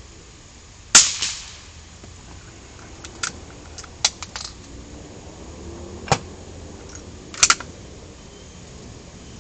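A gunshot fired about a second in, loud and sharp with a short ringing tail. It is followed by a run of lighter clicks, a single sharp knock about six seconds in, and a second loud report near the end that comes as a quick double crack.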